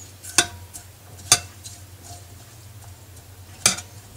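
A spoon stirring water, lemon slices and herbs in a saucepan, clinking sharply against the pot three times.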